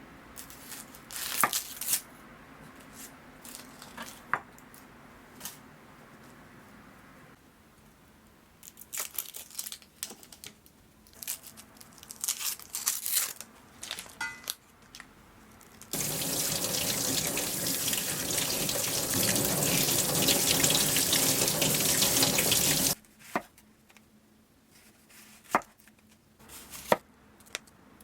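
Kitchen tap running steadily for about seven seconds in the second half, with scattered knocks and clinks of kitchen handling before and after.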